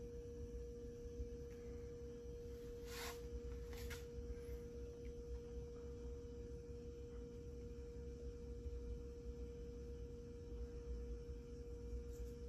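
Faint steady single-pitch hum over a low rumble, with two brief soft hisses about three and four seconds in.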